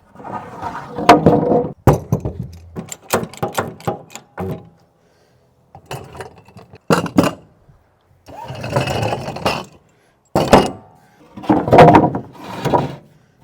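Knocks, clanks and scraping from a heavy cast-iron lathe being wheeled and shifted over wooden planks, heard in short separate bursts with dead-silent gaps between them.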